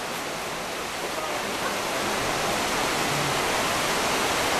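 River water rushing over rocks in the rapids, a steady hiss.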